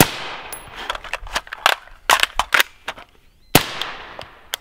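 Gunfire from an AR-15-style carbine: a loud shot right at the start and another about three and a half seconds in, each with a long echo dying away. Between them comes a run of shorter, sharper cracks.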